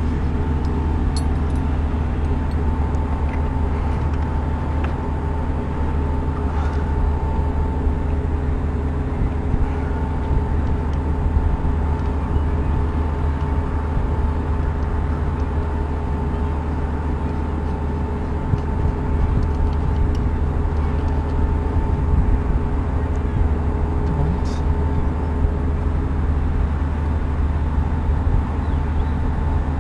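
Steady machinery hum holding a few constant tones over a low rumble, with a few faint clicks.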